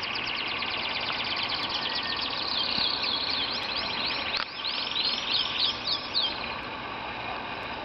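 A flock of caged canaries and lovebirds singing and chirping at once in a dense, fast trilling chorus. A run of loud, repeated swooping notes stands out from about three to six seconds in.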